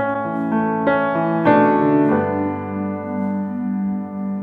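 Background music on piano: a slow run of chords struck one after another over the first two seconds, then left to ring and fade.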